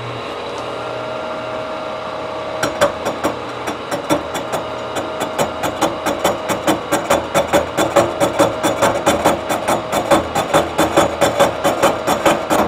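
A 3-inch carbide-insert face mill on a vertical milling machine, humming for a couple of seconds and then cutting into a cast-iron exhaust manifold flange. The interrupted cut sets up a fast ticking, about five a second, that grows louder; the machinist suspects a few worn inserts are grabbing while the others are not.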